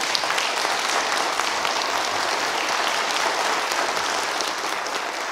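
An audience applauding: a burst of many hands clapping that starts at once and slowly dies away near the end.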